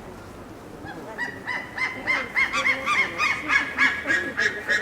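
Female red panda giving a rapid series of short squeaky 'kyuu' calls, about three a second, beginning about a second in. It is a wary warning call at a male that has come too close, which the uploader takes to mean 'don't come near'.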